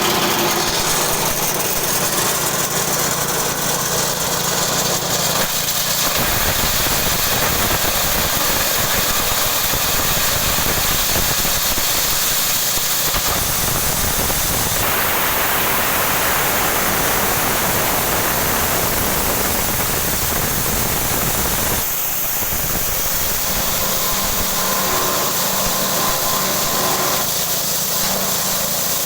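Multifunction forage chopper and hammer mill running with its drive motor, a loud steady mechanical noise whose tone shifts a few times.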